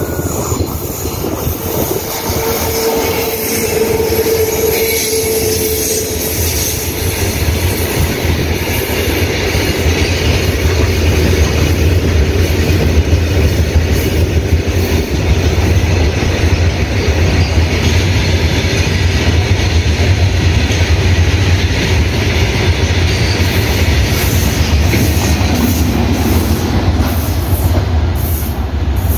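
Freight train hauled by an electric locomotive rolling along the line: a steady rumble of wheels on rails that grows heavier from about eight seconds in. A brief steady tone comes a few seconds in, and rhythmic wheel clacks near the end.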